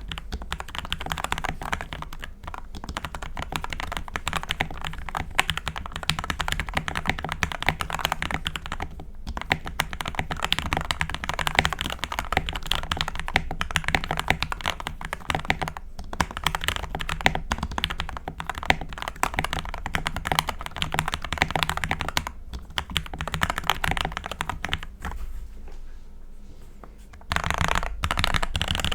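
Continuous typing on a Pulsar PCMK mechanical keyboard with lubed Gateron Yellow linear switches, dampened by tape, holee and bandaid mods, EVA foam and PBT keycaps. The keystrokes come in a dense, steady stream with a few brief pauses. They soften for a couple of seconds near the end, then pick up again louder.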